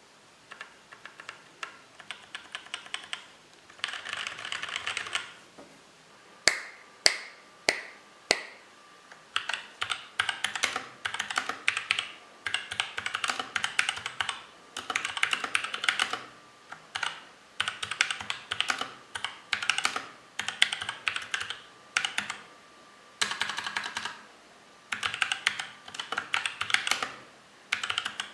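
Mechanical keyboard with tactile Outemu Sky switches lubed with Krytox 104 (springs and stem legs left dry), typed on in quick runs of keystrokes separated by short pauses. Between about six and eight seconds in come five single keystrokes, louder and set apart.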